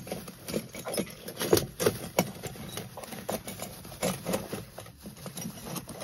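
A hand rummaging in a plastic bag of small metal gate fittings: irregular crinkling of plastic with light clinks of metal.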